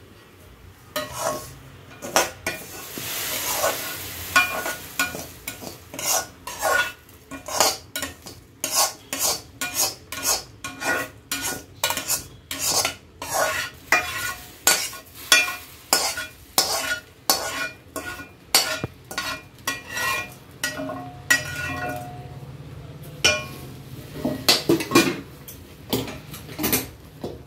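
Steel spatula scraping and clinking against metal kadais in quick repeated strokes, about two a second, as roasted vermicelli is scraped out of one pan and pushed into milk in another.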